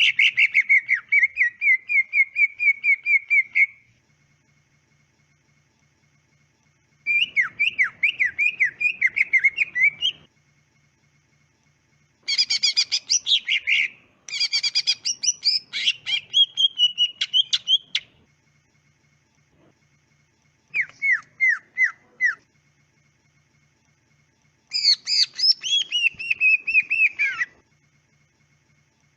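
Green leafbird (cucak ijo) singing in six bursts of rapid, repeated whistled notes, each burst lasting about two to four seconds, with short pauses between.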